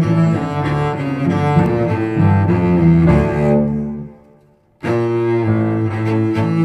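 Background music with low, sustained notes. It fades out about four seconds in and starts again abruptly less than a second later.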